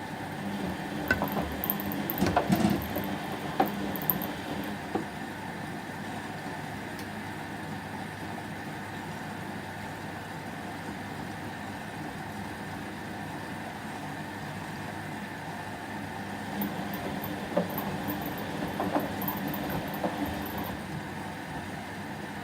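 Whirlpool washing machine on a delicate 30° cycle, its drum turning the wash in two short bouts with scattered knocks and clicks. Between the bouts there is a pause with a steady low hum, the gentle start-stop drum action of a delicate wash.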